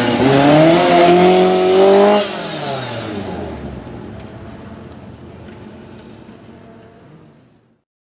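Lancia Rally 037's supercharged four-cylinder engine at full throttle, its pitch dipping briefly then climbing. About two seconds in the note drops sharply as the car goes past, then fades away to silence.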